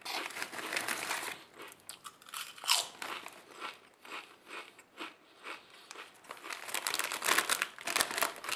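Thin potato chips crunching as they are bitten and chewed, loudest in the first second and a half, with the foil chip bag crinkling as a hand reaches into it toward the end.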